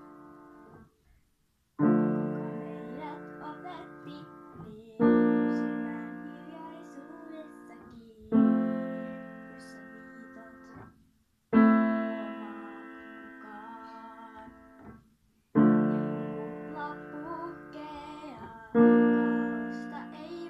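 Upright piano playing slow sustained chords, one struck about every three seconds and left to ring and fade, six in all, with a brief gap of near silence about a second in.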